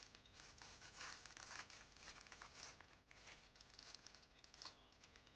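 Faint rustling and crinkling of thin plastic packaging being handled and opened, in short, irregular scrapes and crackles.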